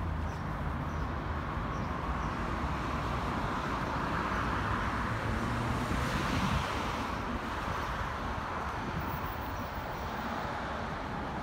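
Street traffic noise: a steady hum of road traffic, with a car passing that swells and fades away over several seconds around the middle.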